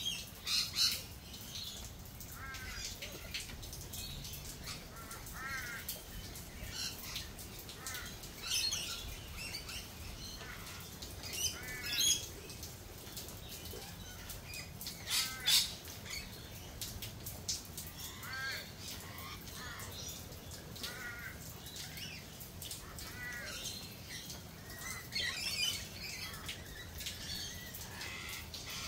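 Garden birds calling repeatedly in short series of notes, with a few loud, harsh squawks spread through, over a steady hiss of light rain.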